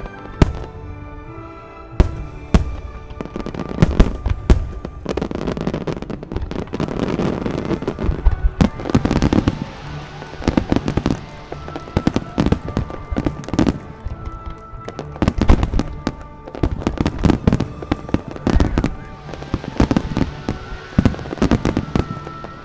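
Aerial fireworks shells bursting: a few single sharp bangs at first, then dense rapid volleys of bangs and crackle through most of the rest, with a brief lull past the middle. Music with long held notes plays underneath.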